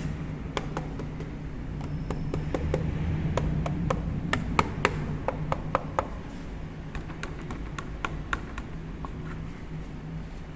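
Yamaha LC135's single-cylinder four-stroke engine idling low and steady. Over it comes a run of short, sharp taps and clicks, thickest and loudest in the middle.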